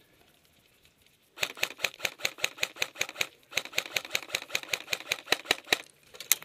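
Rapid, evenly spaced sharp mechanical clicking from airsoft gear, about seven clicks a second, in two runs of about two seconds with a short break between them, then one louder single click near the end.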